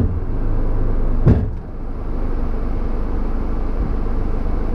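Electric 4WD winch running under load with a steady drone, hauling its steel line, with one sharp bang about a second in followed by a brief dip before it runs on. The bang was taken for the rope snapping; the steel line had come off the pulley at the anchor.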